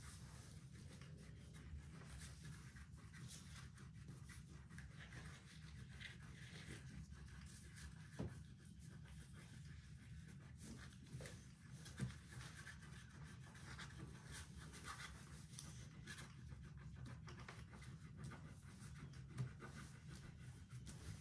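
Faint scratching of oil pastels being rubbed over paper, with a few soft knocks on the table.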